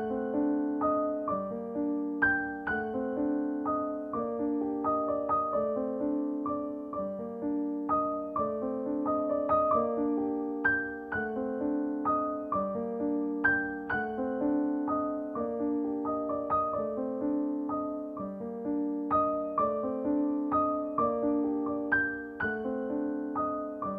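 Background music: a piano playing a continuous flowing run of notes and chords.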